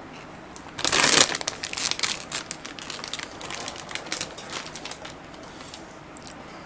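A crisp bite into a Takis rolled tortilla chip about a second in, then chewing with a run of crackling crunches that thins out after a few seconds.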